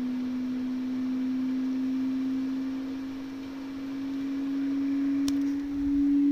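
Steady sine-wave test tone of about 250 Hz from a class D amplifier, its pitch creeping slowly upward. A single short click about five seconds in.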